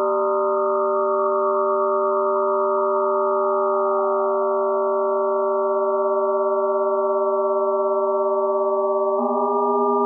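Electronic drone of layered sine tones synthesized in Max/MSP: a steady chord of pure tones, with one tone gliding slowly downward in the first half. The chord shifts to a new set of pitches near the end.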